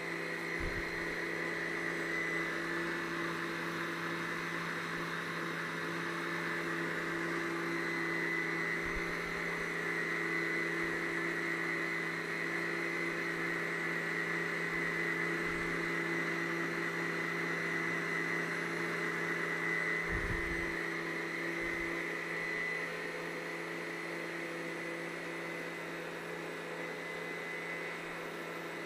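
The Baker electric stand mixer's motor running steadily with a constant whine as its beater mixes banana cake batter in the stainless steel bowl. It turns a little quieter about three-quarters of the way through.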